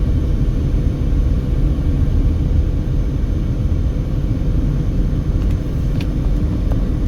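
Steady low rumble of road noise inside a passenger car driving at highway speed, with a faint steady hum.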